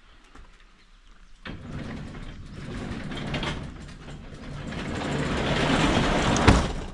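Garage door closing: a click about a second and a half in, then a rattling run that grows louder, ending in a sharp knock as the door meets the floor.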